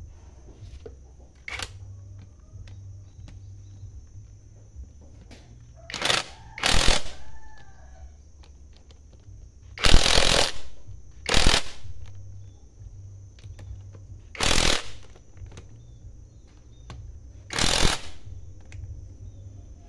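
Cordless impact driver hammering in about six short bursts a few seconds apart on the bolts of a Kubota DC70 HST pump's housing, the burst about halfway through the longest and loudest.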